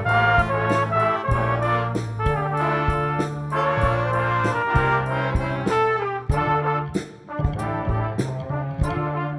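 Brass ensemble of trumpets and trombones playing a jazzy arrangement over electric bass and a drum kit keeping a steady beat, with a short break in the playing about seven seconds in.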